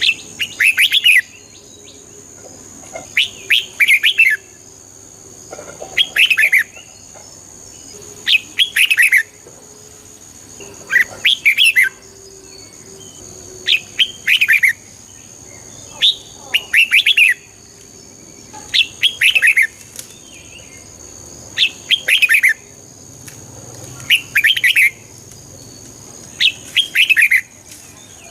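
Red-whiskered bulbul singing: a short warbling phrase of falling notes, repeated about every two seconds, over a faint steady high whine.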